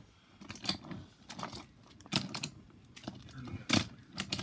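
Light, irregular clicks and taps, about two a second, from toy subway trains on a wooden track layout.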